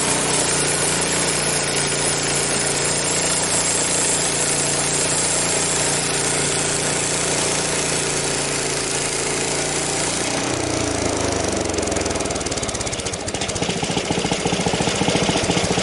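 The sawmill's small gasoline engine running steadily at high speed with a wide, hissing noise on top. About two-thirds of the way in, its pitch drops and it settles into an even, pulsing idle.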